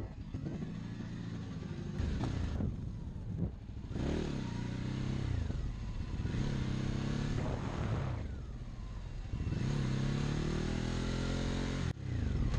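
Motorcycle engine running under way, its pitch climbing and dropping back several times as it accelerates and changes gear, over a steady rush of wind.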